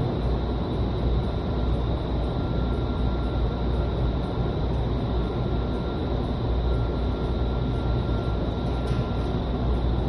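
Vertical wind tunnel running: a steady, loud rumble of fans and rushing air, with a faint high tone held above it.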